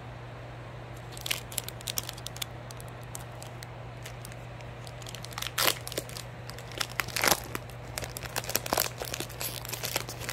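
Foil trading-card booster pack being crinkled and torn open: sharp crackling bursts begin about a second in and come thicker and louder around the middle and toward the end.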